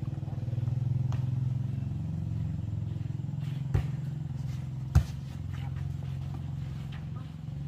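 Two sharp smacks of a volleyball being struck by hand, the louder one about five seconds in, over a steady low engine drone.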